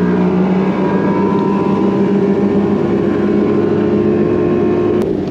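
Bass boat's outboard motor running steadily at speed, a constant engine drone. The tone drops away with a click near the end.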